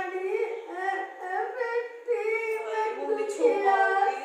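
A woman's high voice, drawn out in long sing-song notes that glide up and down without clear words, fading out near the end.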